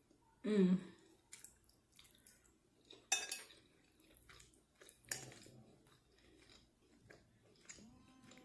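Metal fork clinking and scraping against a ceramic plate of spaghetti, with a few sharp clicks and soft chewing. A short murmur of voice comes about half a second in.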